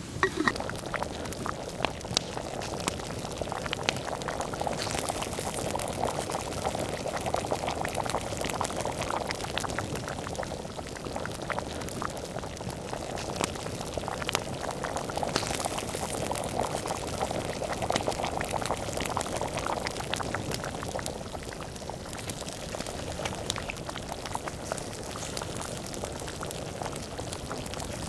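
Water bubbling at a steady boil in a black enamel pot hung over a campfire, with the fire's small crackles and pops scattered through it.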